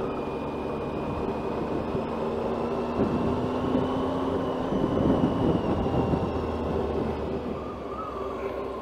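Motorcycle engine running under way with rushing wind and road noise; it gets louder and rougher from about three seconds in, then eases off again near the end.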